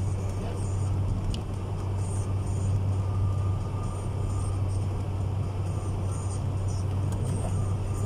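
Steady low drone of a car's engine and tyres running on a snowy, rutted road, heard from inside the cabin.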